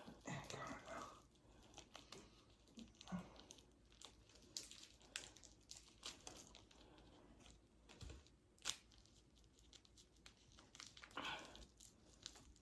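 Faint crinkling and tearing of a plastic wrapper, with scattered light taps and clicks; one sharp click about two-thirds of the way in is the loudest.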